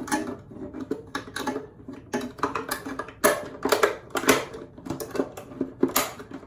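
Plastic soda bottle being handled against hair: an uneven string of sharp clicks and crackles, roughly two a second.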